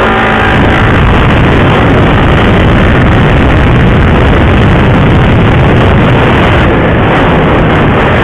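Motorcycle riding at speed, heard from the rider's own microphone: a loud, steady rush of wind and engine noise, with the engine's pitched tone faintly audible only about the first second.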